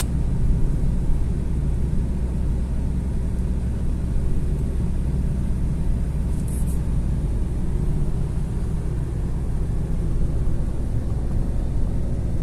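A car driving along a paved road: steady low rumble of engine and tyres.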